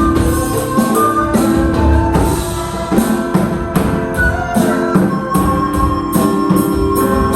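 Live music from a small informal band: held melody notes over a steady beat of drums and jingling percussion.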